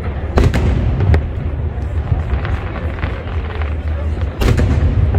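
Fireworks display shells bursting: sharp bangs about half a second and a second in, then a heavier burst near the end, over a steady low rumble.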